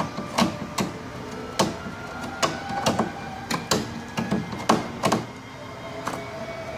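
Picking and scraping by hand at the edge of a fiberglass cowling: irregular sharp scratches and clicks, about one or two a second.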